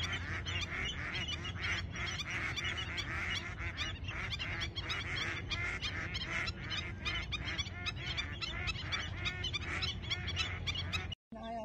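A flock of waterfowl, geese among them, honking and calling continuously in many short, overlapping calls. The calls cut off suddenly near the end.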